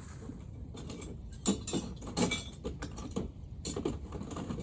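Hand tools and engine parts clinking and knocking irregularly, loudest about a second and a half and two seconds in.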